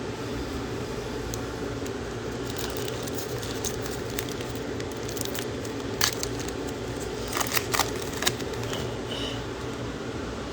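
Foil trading-card pack being torn open and its wrapper crinkled, with cards handled: scattered crackles, and a few sharper snaps about six seconds in and again around eight seconds in, over a steady low hum.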